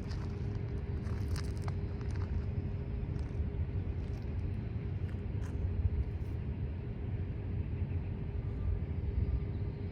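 Steady low vehicle rumble with a constant hum over it.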